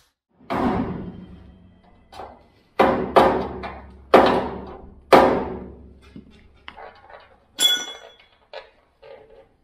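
Hammer blows on the rusted steel sill panel of a 1975 Bedford truck cab, knocking it loose after its spot welds have been drilled out. There are five heavy blows, each ringing briefly, then lighter knocks and a short metallic scrape near the end as the panel is worked free.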